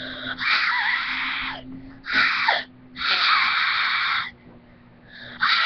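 A person with a cold trying to scream: four breathy, hoarse screams that come out mostly as air, with little voice in them, the third the longest.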